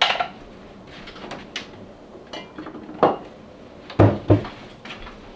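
Kitchen handling knocks and clicks as a glass bottle is fetched from the counter: a sharp knock at the start, a few lighter clicks, and two heavier thumps close together about four seconds in.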